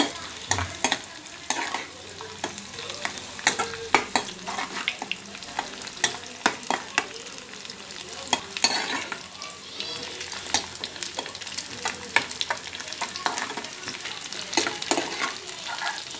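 Mettallu, small dried fish, sizzling as they fry in hot oil in a kadai. A metal spoon stirs them, with frequent sharp clicks and scrapes against the pan.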